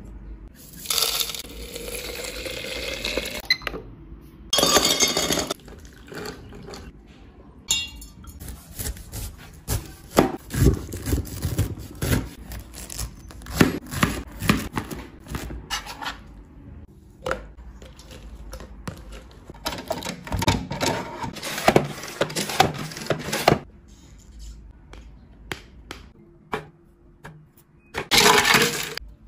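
Kitchen food-prep sounds: a cleaver chopping peeled pineapple on a cutting board in a string of knocks, among clinks of glass and utensils and a few short rustling or pouring stretches.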